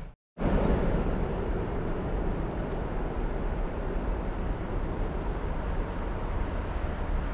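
Freight train rolling past: a steady rumble and rush of wagons on the rails, after a brief dropout right at the start. A faint, short high-pitched squeak comes about three seconds in.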